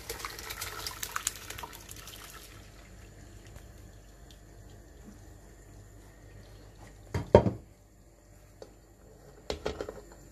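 Hot plum compote poured from a steel pot into a perforated steel strainer, the liquid splashing through for about two and a half seconds, then quieter. About seven seconds in there is one loud knock of metal, the loudest sound, and a few lighter knocks near the end.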